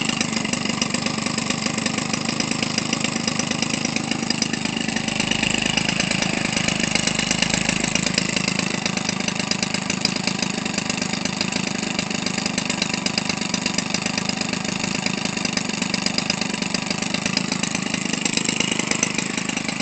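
Weedeater Featherlite 25cc two-stroke string-trimmer engine, converted for an RC plane with a gutted muffler and welded-on exhaust pipe, idling steadily while turning a propeller. It runs very smooth.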